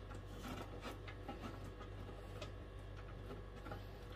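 Cheese being grated on a metal box grater: faint, irregular rasping strokes.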